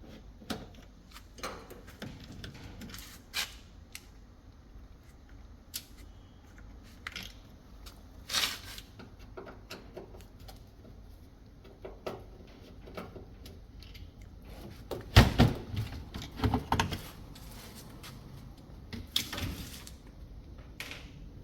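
Scattered clicks, taps and knocks of screws being undone and a washing machine's back cover being handled and taken off, with a cluster of louder knocks about fifteen seconds in and more a few seconds later.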